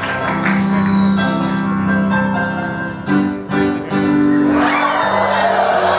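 Instrumental show music played over a theatre's sound system, with steady held notes and a few strong accents about halfway through. An audience cheers and whoops over it from about two-thirds of the way in.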